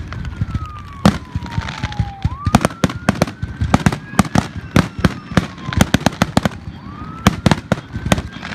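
Fireworks display: a rapid, continuous string of bangs and crackles as shells and comets are fired and burst in quick succession. Under the bangs a faint wailing tone slowly rises and falls, starting over about every five seconds.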